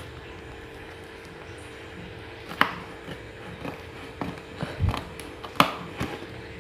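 Scissors cutting through a cardboard box: a run of irregular snips and crunches, the two sharpest about two and a half and five and a half seconds in, over a faint steady hum.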